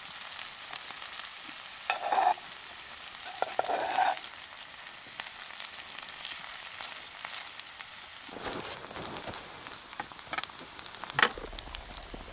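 Sliced potatoes and onions sizzling in an oiled cast iron pan over a wood fire, with a spatula stirring and scraping them. The scraping comes louder about two seconds in and again about four seconds in.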